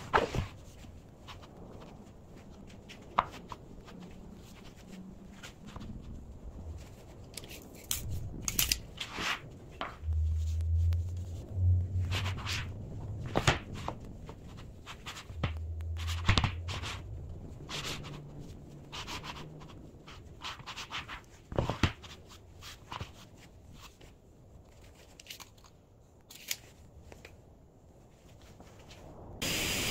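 Solid oak boards being shifted and slid against each other on a worktable: scattered wooden knocks and clicks, with a few longer low rumbles as boards slide.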